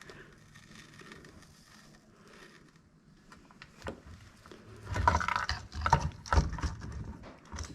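Small tools and parts being handled on a workbench during soldering: a few faint ticks, then a cluster of knocks and rattles about five to seven seconds in.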